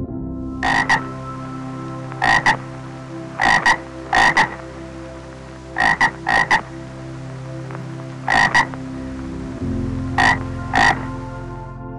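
Frog calling in short, clucking croaks, mostly in quick pairs, repeated every second or two.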